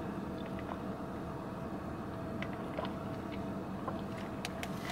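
Steady low hum of a car idling, heard from inside the cabin, with a few faint small clicks.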